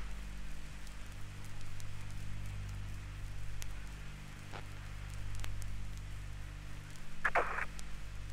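Apollo 11 air-to-ground radio channel with no one talking: steady hiss and low hum, with scattered faint clicks and crackle from the vinyl record it is played from. There is a short radio blip about seven seconds in.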